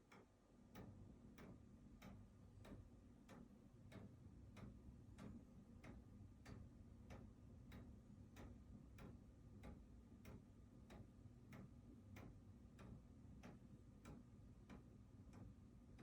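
Faint, steady ticking of a 3D-printed mechanical clock's escapement, a little under two ticks a second, over a low steady hum.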